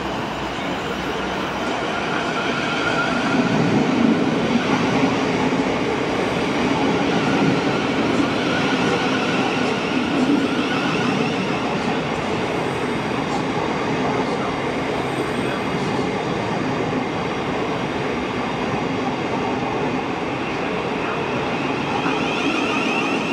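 A train running on the rails, a steady, continuous noise of wheels and running gear that gets a little louder a few seconds in.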